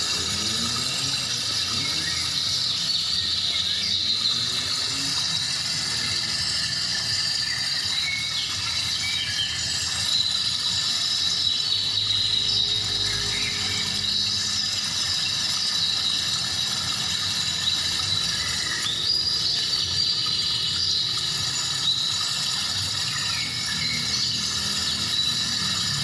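Steady outdoor waterfall ambience: a constant rush of falling water with a shrill, unbroken insect drone over it.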